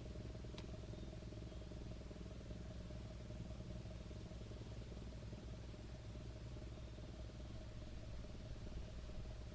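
A steady low engine hum that holds the same pitch throughout, with one faint tick about half a second in.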